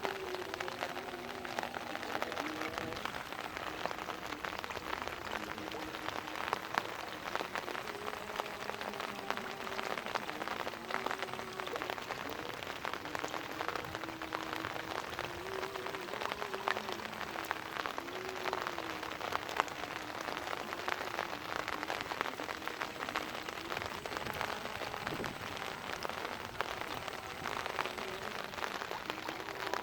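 Rain falling steadily, a dense patter of drops on surfaces, with a faint wavering tone underneath.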